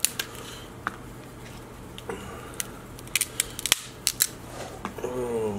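Alaskan king crab leg shells cracking and snapping as they are broken by hand and the meat is pulled out. The sharp cracks come in ones and twos, with a quick run of them about three to four seconds in.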